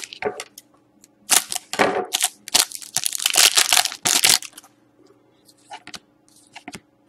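A foil Panini Select hockey card pack being crinkled and torn open: a run of loud crackling bursts over about three seconds, followed by a few faint clicks of the cards being handled.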